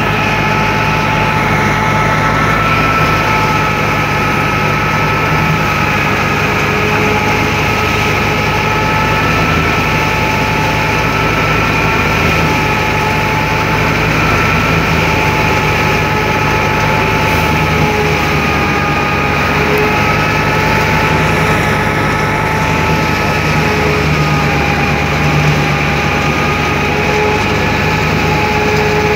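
Tractor-driven wheat thresher running steadily while wheat sheaves are fed into it: a loud, unbroken machine drone with a constant whine over the tractor engine's low hum.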